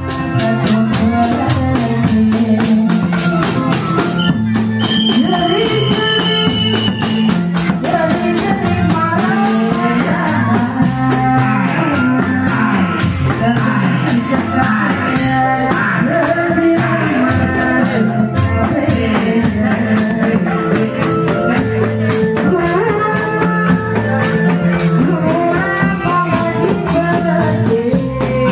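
Music with a steady, quick beat and a singing voice.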